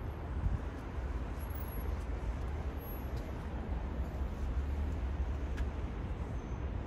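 Steady low vehicle rumble, even throughout, with a few faint clicks.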